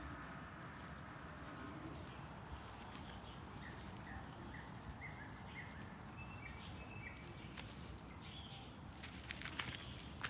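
Garden ambience: insects chirping in repeated short, high-pitched bursts. About a third of the way in comes a run of short, level chirps, like a small bird.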